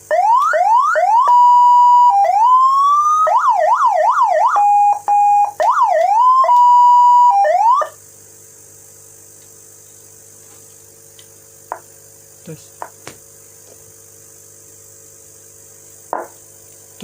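Electronic vehicle siren running a Whelen Euro Gama G2 tone program, stepping through its tones: quick rising sweeps, steady tones near 1 kHz and fast up-and-down wails, with a brief break in the middle, stopping abruptly about eight seconds in. A low steady hum and a few short clicks follow.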